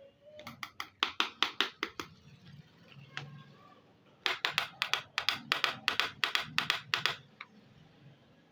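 Rapid sharp taps and clicks of small hard plastic miniature toy pieces being handled, in two quick runs: one of about a second and a half, then after a pause one of about three seconds, at roughly five to seven taps a second.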